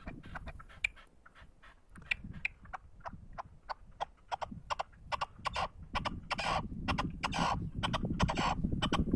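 Male red-legged partridge singing, a rapid string of harsh, rhythmic chuck notes that grow denser and louder over the second half.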